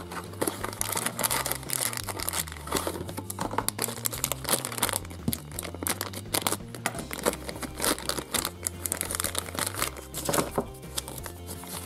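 Plastic packaging crinkling and rustling as a toy's sealed plastic sachet is handled and slit open with a utility knife, in dense irregular crackles. Quiet background music runs underneath.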